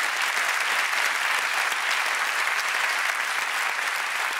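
Audience applauding: many hands clapping steadily as a dense, even patter.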